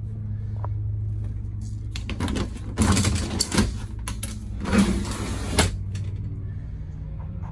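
A glass shower door being opened in a motorhome's bathroom, with a few scraping, clattering noises spread over about three and a half seconds, starting about two seconds in. A steady low hum runs underneath.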